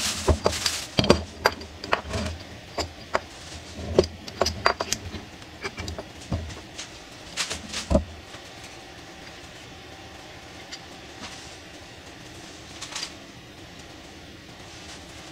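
Handling noise: a plastic bag rustling and a metal drill press vise knocking and clunking against a wooden workbench, in quick irregular knocks through the first half. After about eight seconds these stop and only a steady low hum is left, with one or two faint ticks.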